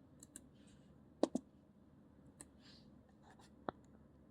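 Faint clicks in a small quiet room: a quick double click a little over a second in, a single click near the end, and a few softer ticks between.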